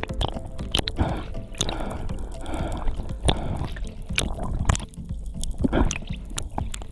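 Water sounds with an irregular run of sharp clicks and knocks over a steady wash of noise.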